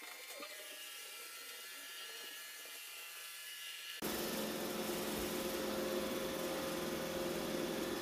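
Roomba robot vacuum running, faint at first. About halfway through the level jumps suddenly to a louder, steady motor and suction noise with a constant whine.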